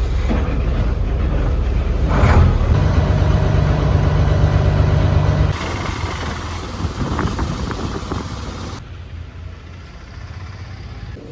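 A motor vehicle's engine running with road noise, getting louder as it speeds up about two seconds in, then dropping abruptly in loudness twice.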